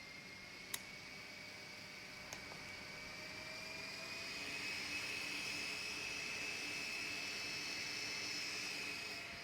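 Small SmartDevil USB desk fan running: a thin motor whine that slowly rises in pitch and grows louder over the first few seconds as the fan speeds up, then holds steady. Two light clicks near the start.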